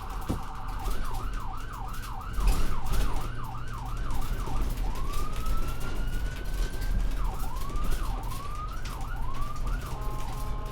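Electronic ambulance siren sounding while the vehicle drives. It starts with a rapid warble, switches to quick up-and-down sweeps about twice a second, gives one long slow rising sweep around the middle, then returns to quicker sweeps, all over a steady low engine and road rumble.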